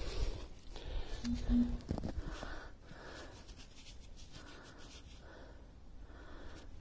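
Faint rustling and small clicks of gloved fingers picking a coin out of loose, dry soil and rubbing the dirt off it, with soft breathing close to the microphone.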